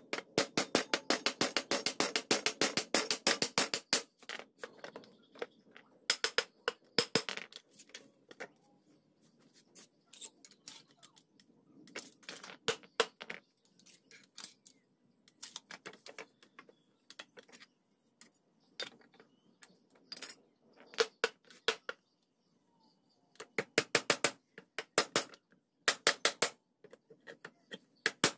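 Claw hammer tapping wooden rails home into the mortise joints of a timber frame, in runs of quick blows several a second, separated by pauses. There is a longer quiet stretch in the middle.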